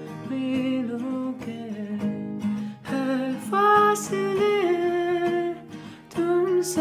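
A man singing a Bollywood song over his own strummed acoustic guitar. The strumming keeps a steady rhythm, and from about halfway through the voice holds and bends long notes.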